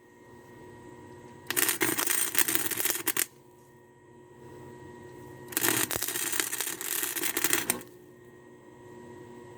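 Welding arc crackling in two short welds of about two seconds each, about a second and a half in and again near six seconds: tack welds joining a steel ladder to the frame. A low steady hum between them.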